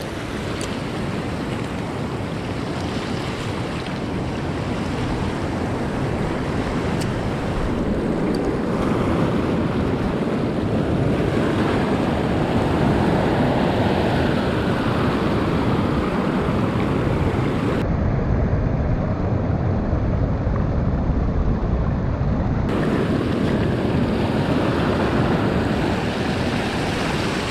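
Sea surf and wind blowing on the microphone: a steady rushing noise that swells a little louder about halfway through.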